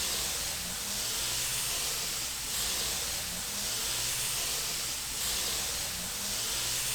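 Compressed-air paint spray gun hissing steadily as it sprays white primer paint, with short breaks about every two and a half seconds.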